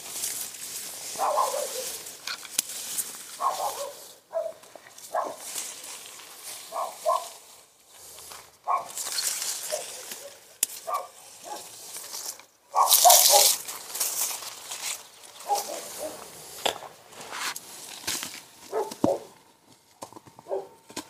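A dog barking at intervals, with short repeated barks every second or two, over rustling noise. A loud rush of noise comes about two-thirds of the way through.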